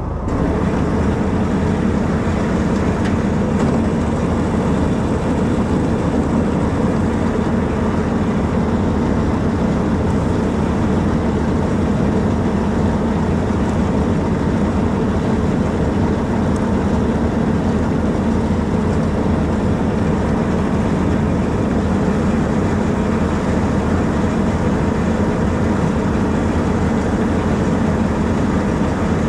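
Farm tractor's diesel engine running at a steady speed, a heavy continuous drone that does not change.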